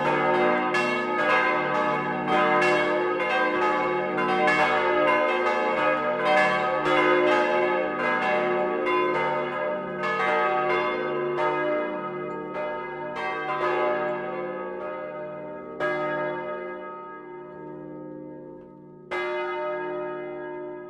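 Swinging church bells, cast in 1949 by Petit & Gebr. Edelbrock, struck by their clappers in a peal. The strokes come thick and overlapping at first and thin out after about twelve seconds as the ringing dies away. Two last lone strokes come near the end, each leaving a long ringing hum.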